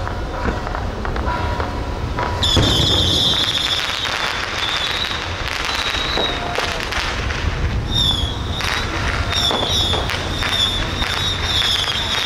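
Firecrackers crackling in a dense, irregular string. A high, wavering whistling tone comes in about two seconds in and again near the end.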